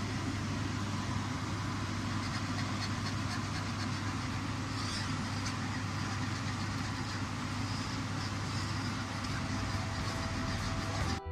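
Steady whir and hum of a kitchen fan, briefly cutting out at the very end.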